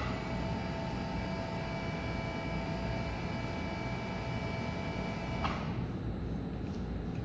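Drive motor and reduction gearing of a Commercy Soudure PM250 welding positioner running, a steady whine as the faceplate and three-jaw chuck turn slowly. It starts with a click and stops with another click about five and a half seconds in.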